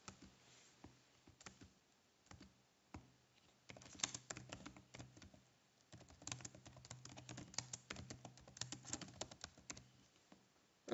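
Faint typing on a computer keyboard: a few scattered keystrokes at first, then quick runs of key presses from about four seconds in until shortly before the end.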